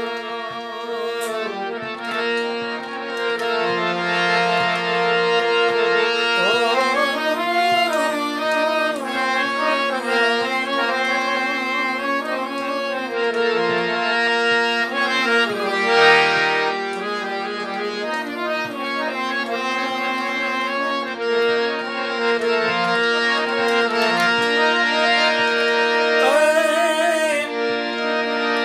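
Hand-pumped harmonium (Paul & Co) playing a slow folk melody over a steady held drone.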